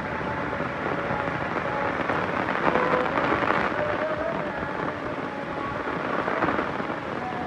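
Heavy rain falling, a dense steady hiss, with faint wavering tones running through it.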